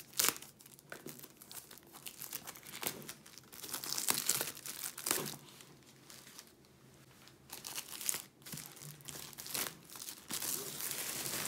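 Cellophane shrink-wrap being peeled and pulled off a cardboard box, crinkling and crackling in irregular bursts, with a sharp click near the start.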